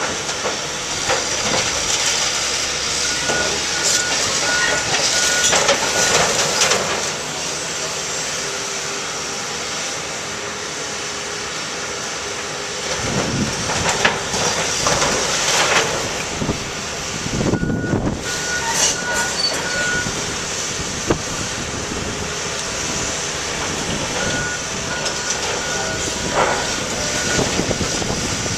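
Samsung tracked excavator running steadily while demolishing a building, with bouts of crunching and crashing sheet metal and debris. A reversing alarm beeps in three short runs.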